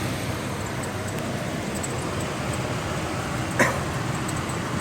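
Truck engine idling steadily after running for several minutes, with one brief, sharp, yelp-like sound about three and a half seconds in.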